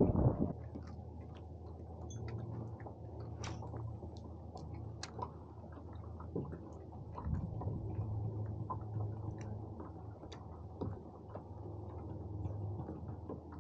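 Scattered soft clicks and ticks from a spinning reel and fishing rod being handled and wound slowly, over a faint steady low hum.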